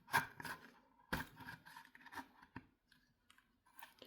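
Prying and scraping at a stuck part of an electric kettle with a tool: a few sharp clicks and short scrapes, the loudest near the start and again just over a second in.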